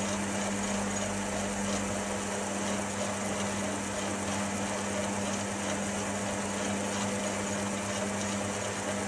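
Chester DB10 bench lathe running steadily with its chuck spinning a brass bar: a constant motor hum and whirr at an unchanging speed.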